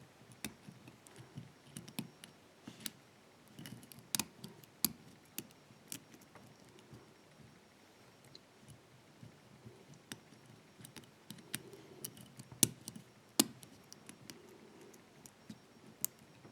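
Lock pick and tension wrench working the keyway of a 5-pin brass barrel padlock during single pin picking: irregular small metallic clicks and light scraping, with two sharper clicks close together late on.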